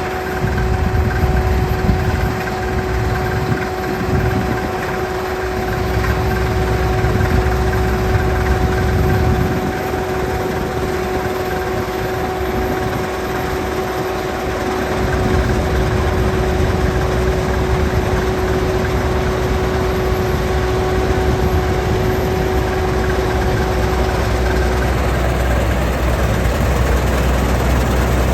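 Deutz-Fahr combine harvester running while harvesting wheat: a steady low engine rumble with a constant whine over it that stops about 25 seconds in.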